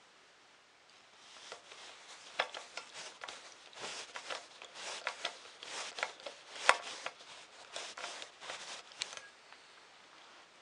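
Metal frame parts of a 3D printer kit handled and a bolt screwed in with a small tool: an irregular string of light metallic clicks and scrapes, with the sharpest clicks about a third and two thirds of the way through.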